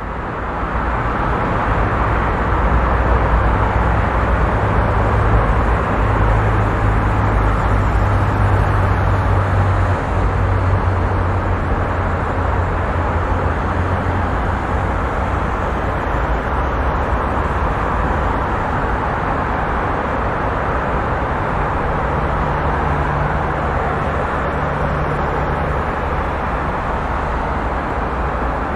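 Heavy, busy highway traffic: a steady wash of tyre and engine noise over a deep, low engine rumble, fading up over the first couple of seconds.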